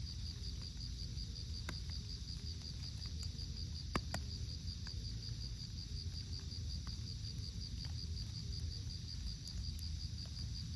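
Insect chirping in a steady high pulsed trill, about five pulses a second, over a low outdoor rumble, with a few faint sharp clicks and one louder click about four seconds in.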